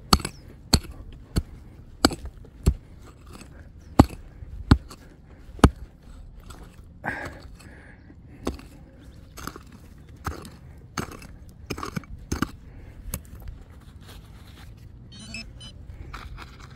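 A digging tool striking hard ground, one sharp strike roughly every second. The strikes are loudest in the first six seconds and softer after that.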